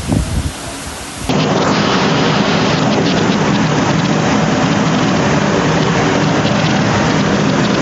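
Gusty wind buffeting the microphone, then an abrupt switch about a second in to a steady heavy downpour of monsoon rain with a faint low hum underneath.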